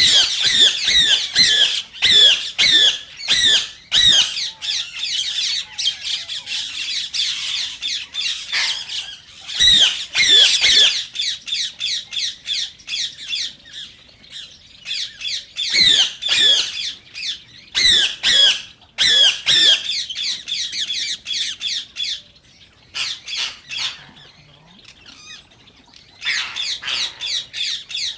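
Indian ringneck parakeets giving rapid runs of short, shrill squawking calls in bursts, with a brief lull about three quarters of the way through before the calling starts again.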